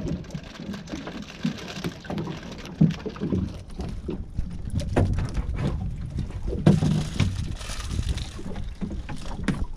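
Water slapping against a small boat's hull as it rocks, with wind buffeting the microphone and a few sharp knocks.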